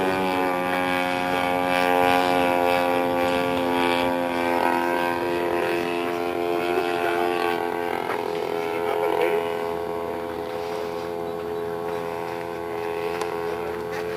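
Gas engine of a 1/3-scale Aeronca Champ RC plane running at a steady speed, gradually getting quieter.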